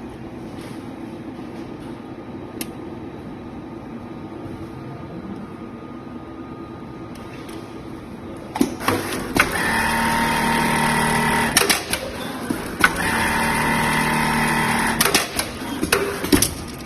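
GML laser bag opener, an automatic double-welt pocket sewing machine, humming steadily at first. About eight seconds in, it runs two stitching passes of about two seconds each, steady and even, with sharp clicks and knocks from the mechanism before, between and after them.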